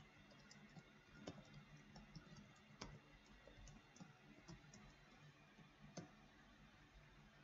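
Computer keyboard keys typed in irregular faint clicks, with a few louder keystrokes among them.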